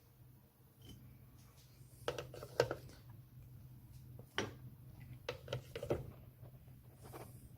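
Dishware and a microwave idli mould being handled, with a handful of light knocks and clinks about two, two and a half, four and a half, and five to six seconds in, over a low steady hum.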